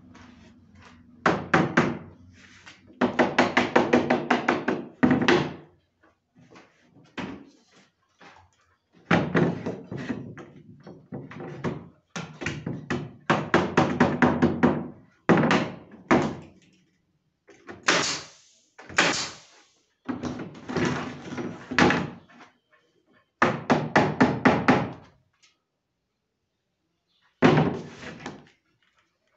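Runs of rapid, sharp knocks on wood, in groups of a second or two with short pauses between, as cedar ceiling boards are nailed to a frame with a pneumatic pin nailer.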